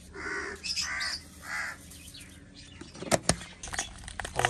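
A crow cawing three times in quick succession, then a few sharp knocks about three seconds in.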